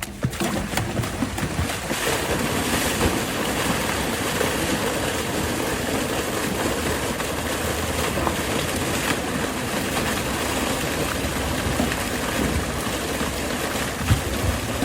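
Steady rush of water that starts suddenly and runs on evenly, typical of a fish tank being emptied down a chute into the pond to release stocked rainbow trout.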